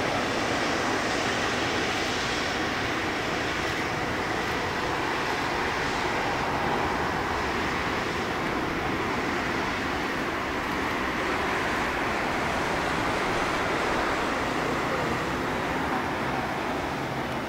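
A Boeing 777-200ER's twin jet engines running at low power as the airliner rolls out slowly after landing, a steady rushing hum that grows slightly quieter near the end.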